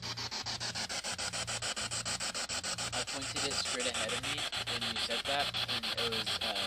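Radio static chopped into rapid, even pulses several times a second, with brief snatches of voice coming through from about three seconds in: a spirit box sweeping through radio stations during a call for spirits to answer.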